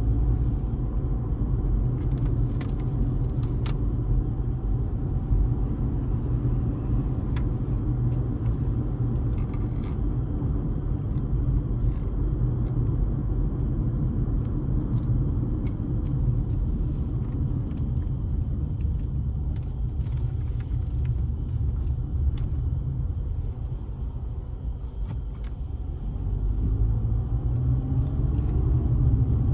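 Steady low rumble of a car driving on the road, engine and tyre noise together. It eases off briefly and builds again near the end.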